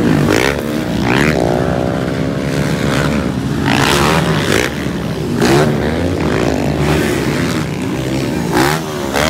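Motocross bike engines racing past, revving up and dropping off again and again as the riders work the throttle, several bikes overlapping.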